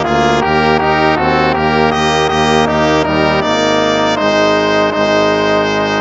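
Instrumental hymn music played on brass, trumpets and trombones, moving through a line of short notes and then holding one long chord from about halfway through.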